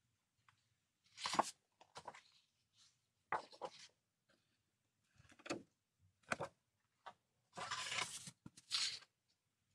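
Sheets of patterned scrapbooking paper being lifted, turned over and laid down one after another: a series of short paper rustles and swishes with quiet gaps between them, the longest about two-thirds of the way through.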